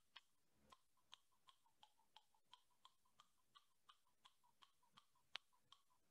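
Near silence with faint, quick clicks about three a second from a silicone Jawzrsize jaw exerciser being bitten down on in quick reps, one click a little louder about five seconds in.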